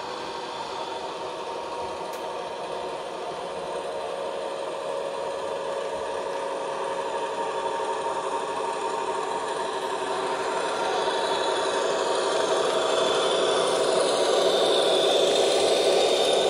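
H0-scale Liliput BR 704 tower railcar model with an ESU sound decoder, its small speaker playing a running diesel railcar engine over the hum and rumble of the model running on the track. It grows steadily louder as the model approaches and is loudest as it passes close by near the end.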